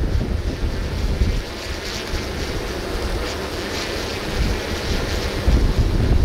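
Gusty storm wind buffeting the microphone: a deep, fluttering rumble under a rushing hiss that swells in gusts a couple of seconds in and again near the end.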